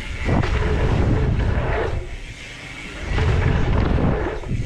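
Wind buffeting the action-camera microphone along with tyres rolling on dirt as a mountain bike rides a dirt-jump line. The rumble is loud, drops for about a second midway, then comes back.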